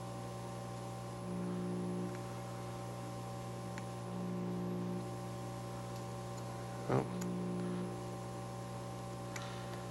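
Steady electrical mains hum from the soldering bench, louder for just under a second about every three seconds. There is a brief sharp click about seven seconds in.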